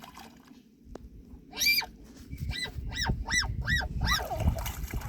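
A bird calling: a short arched call about a second and a half in, then a quick string of about five more rising-and-falling calls.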